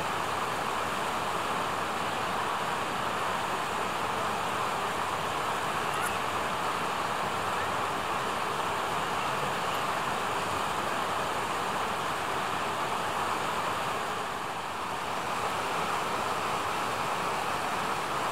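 Steady rushing outdoor background noise with no distinct events, dipping slightly about fourteen seconds in.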